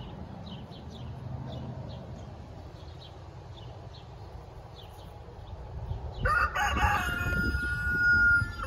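Rooster crowing once, a long cock-a-doodle-doo starting about six seconds in, held on a steady pitch and dropping as it ends. Before it, faint chirps of small birds.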